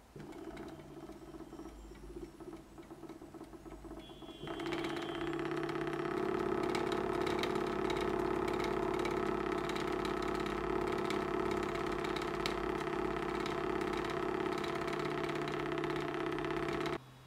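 Homemade free-piston Stirling engine running: its magnet-weighted power piston oscillating on the can lid with a rapid, steady buzzing rattle. It is faint and uneven at first, jumps to a much louder steady buzz about four seconds in, and cuts off suddenly near the end.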